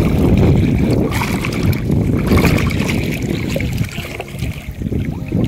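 Shallow seawater sloshing and splashing, with wind buffeting the microphone in a continuous low rumble.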